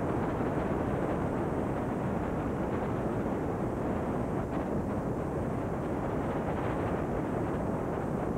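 Steady rushing noise, heaviest in the low and middle range, with no distinct events: the noise of a blank, unrecorded stretch of videotape playing back on a VCR.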